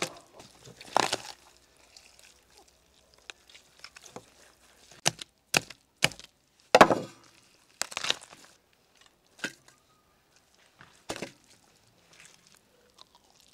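A whole spit-roasted lamb being torn apart by gloved hands: the crisp skin and bones break with sharp cracks at irregular intervals, with softer tearing between them.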